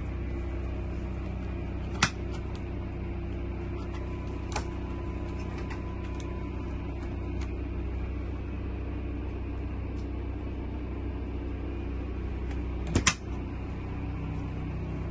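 Door of a Dometic RV refrigerator being handled, with a sharp click about two seconds in, a lighter click a little later, and a louder double knock near the end as the door is shut. A steady low hum runs underneath throughout.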